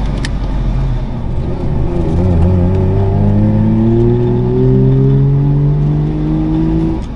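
Saab three-cylinder two-stroke engine heard from inside the cabin, accelerating through the gears: the revs drop at a gear change at the start, with a brief click, then climb steadily for about five seconds before dropping again near the end.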